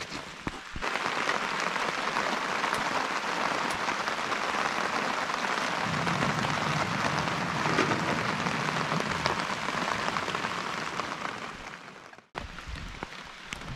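Steady rain falling on a tarp shelter overhead.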